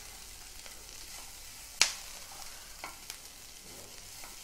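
Chopped onions with ginger and garlic frying in oil in a nonstick pan, a soft steady sizzle as they are stirred with a silicone spatula. A sharp tap of the spatula against the pan comes about two seconds in, with a couple of lighter taps about a second later.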